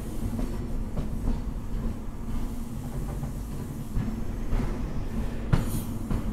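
CrossCountry High Speed Train running along the track: a steady low rumble with the wheels knocking over the rail joints every second or so, the loudest knock about five and a half seconds in.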